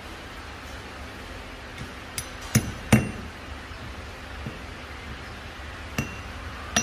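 Sharp steel-on-steel clinks with a short metallic ring as a red-hot threaded shaft with a square steel bar driven into its end is knocked and handled on a steel block during hot forging: three close together a little past two seconds in, then two more near the end, over a low steady hum.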